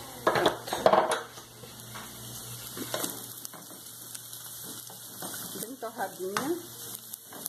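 Bacon, sausage and vegetables frying in an aluminium pot, a steady sizzle, while a wooden spoon stirs and knocks against the pot. The loudest knocks come in the first second or so.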